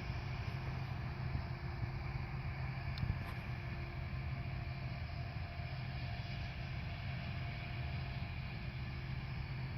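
Diesel-powered corn harvest machinery running steadily with a low hum, and a single faint click about three seconds in.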